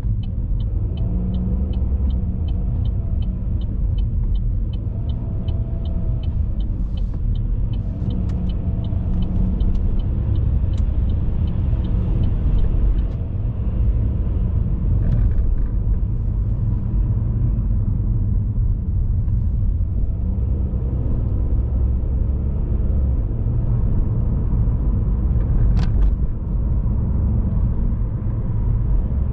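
A car being driven, its road and engine noise a steady low rumble. Over the first half a turn-signal indicator ticks at an even rate, then stops about halfway through. There is a single sharp click near the end.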